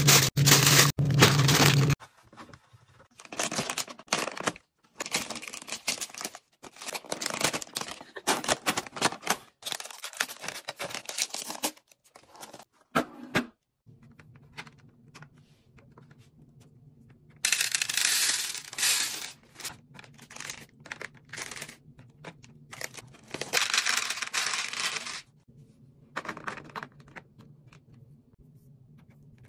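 Irregular crinkling, tearing and clattering of plastic food packaging and containers being handled, in short bursts with gaps; a faint steady low hum runs underneath from about halfway in.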